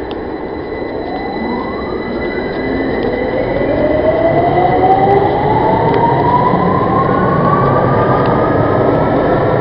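Inside an underground train carriage, the traction motors whine in several rising tones over a steady rumble of wheels on rail as the train accelerates. The sound grows louder as the pitch climbs.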